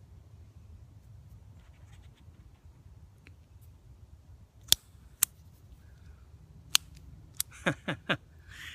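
Premium Spark multitool lighter's igniter clicking, a few sharp separate clicks from about halfway through and then a quick run of snaps near the end, without lighting: the lighter works only about half the time.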